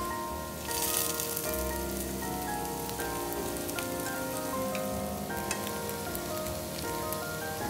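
Potato cubes sizzling in shallow oil in a nonstick frying pan. The sizzle swells briefly about a second in, and a few light clicks come from a spatula turning the cubes. Background music with sustained notes plays throughout.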